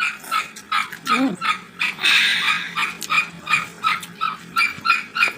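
A small dog yapping repeatedly, about two to three short barks a second, with a longer, rougher sound about two seconds in.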